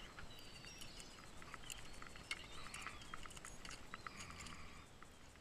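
Faint, irregular light clicks and ticks of fishing tackle being handled: a lure on its line and a rod.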